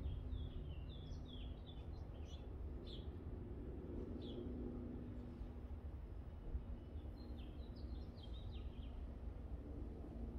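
Small birds chirping in quick series of short, falling notes, one bout near the start and another about seven to nine seconds in, over a steady low background rumble.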